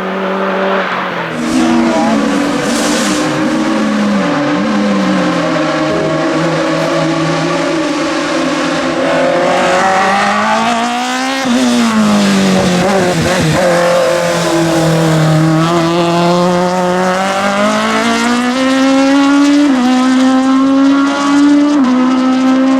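Renault Clio Sport touring car racing up a hill climb under hard acceleration, its engine note climbing and dropping through gear changes. It passes close about halfway through, with a sharp rise and fall in pitch, then keeps pulling hard through more shifts.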